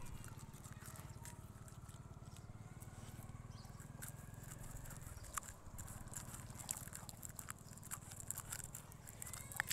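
A puppy chewing: faint, irregular clicks and snaps over a steady low hum.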